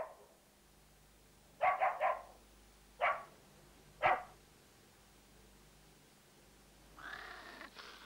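Dogs barking: a quick run of three barks about one and a half seconds in, then two single barks about a second apart. A fainter, hissing noise begins near the end.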